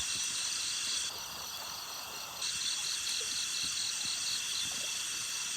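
Night chorus of crickets and other insects trilling steadily, one of them in a pulsing chirp that stops about a second in and comes back a little over a second later.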